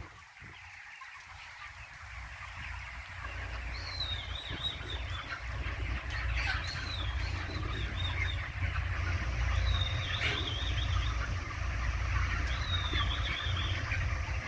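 Poultry flock calling: a steady mass of bird chatter with several high, wavering calls a few seconds apart, over a constant low rumble. The sound grows louder after a brief dip near the start.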